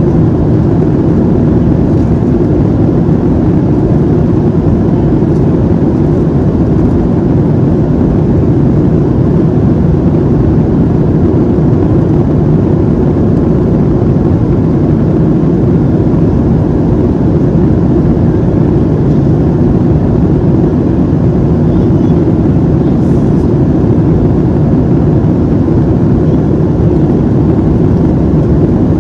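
Steady deep cabin drone of a Boeing 737-700 in flight: engine and airflow noise heard from a passenger seat, with no change in level.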